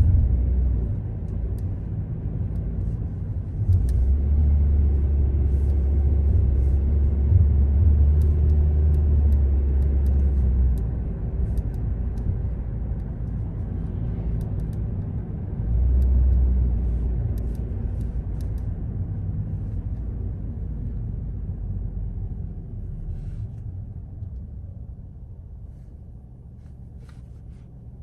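A car driving on city streets: steady low road and engine rumble, swelling louder for several seconds twice and growing quieter near the end.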